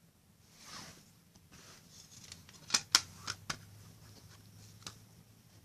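Handling of a CD's packaging: a brief swish of paper or plastic, then a handful of sharp plastic clicks, two loud ones close together in the middle and one more near the end.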